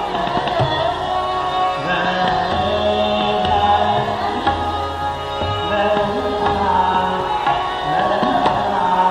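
Hindustani classical vocal music in raag Nat Malhar: a man singing over a steady drone, with tabla accompaniment.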